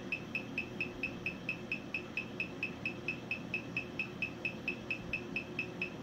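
Rapid, regular electronic beeping: short high beeps of one pitch, about five a second, over a faint steady hum.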